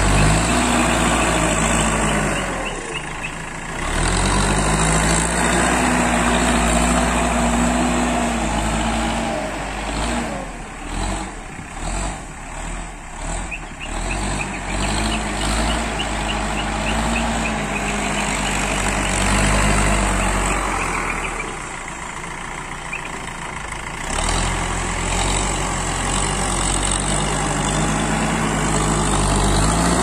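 Diesel engine of an ACE backhoe loader, a Kirloskar diesel, running under load as the machine pushes and scrapes soil with its front bucket, its pitch rising and falling several times as the throttle changes.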